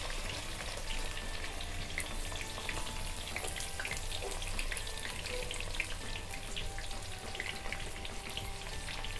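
Chopped red onion and minced garlic sizzling in hot refined oil in a kadhai, a steady frying sizzle full of fine crackles.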